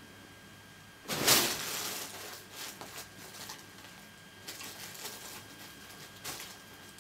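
A cat moving on carpet and pawing at a toy: a loud rustling scuff about a second in, then scattered softer rustles and taps.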